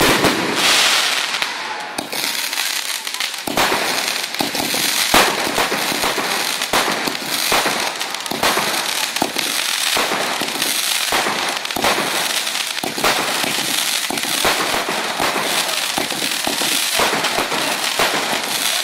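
Fireworks going off in a dense, continuous barrage of sharp bangs and crackling, many reports a second with no real pause.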